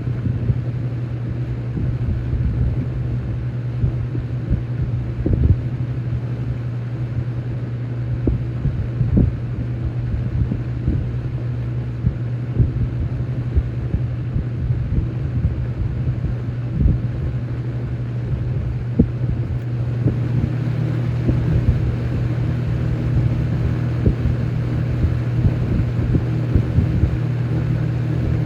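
Toastmaster (McGraw-Edison) 20-inch box fan with its in-house McGraw-Edison motor and banana-style blades, running with a steady hum and rushing air that buffets the microphone. About two-thirds of the way in the sound grows slightly louder and fuller.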